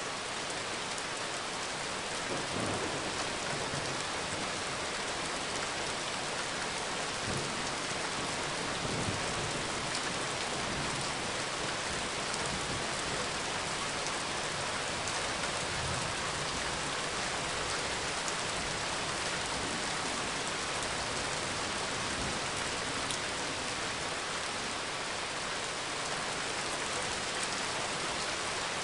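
Steady rain falling, an even dense hiss of drops, with a few soft low rumbles along the way.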